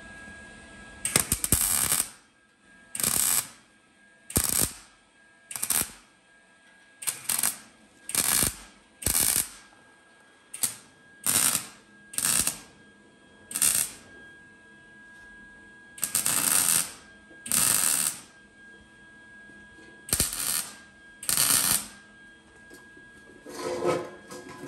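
Wire-feed (MIG) welder tack-welding thin sheet metal: a series of about fifteen short crackling bursts of the arc, each under a second and spaced one to three seconds apart.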